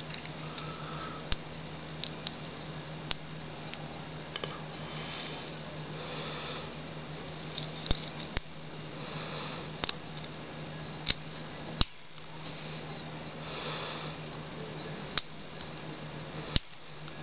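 A lock pick working the spool pins of a brass U-Haul padlock: soft scraping and scratching in the keyway, with scattered sharp clicks every second or so.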